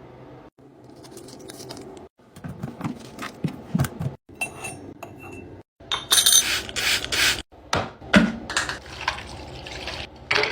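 Glass jars and containers clinking, knocking and being set down, in short segments that cut off abruptly one after another.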